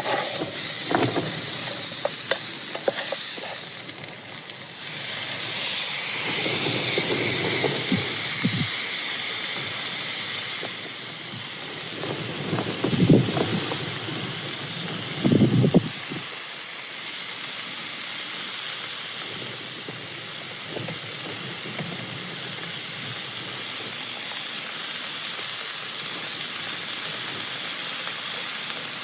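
Food sizzling as it fries in a pan, with a few knocks and scrapes of a utensil about halfway through.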